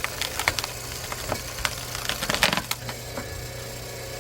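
Wood cracking and splintering in a run of sharp snaps as a hydraulic log splitter forces its wedge into a thick, knotty log, with a burst of loud cracks about halfway through. The splitter's power unit hums steadily underneath.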